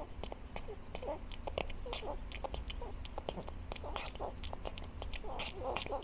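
Cat eating from a metal bowl: a quick, irregular run of small chewing clicks and smacks.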